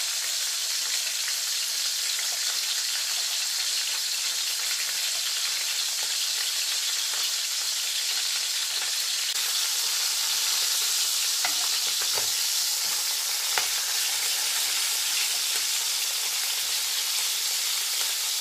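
Pieces of Thomson (horse mackerel) frying in hot oil in a pan: a steady sizzle. In the second half a metal spatula turning the fish adds a few short clicks and scrapes.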